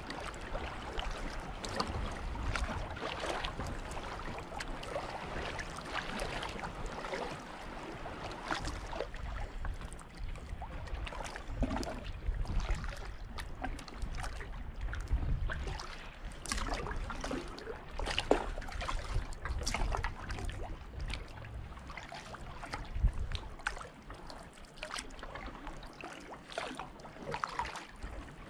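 Paddling a Wilderness Systems Pungo kayak: water trickling and dripping off the paddle blades and lapping against the hull, with scattered small splashes at irregular intervals.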